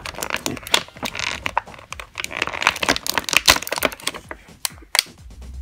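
Clear plastic toy packaging crinkling and crackling in irregular clicks as a small plastic piece is worked out of it by hand.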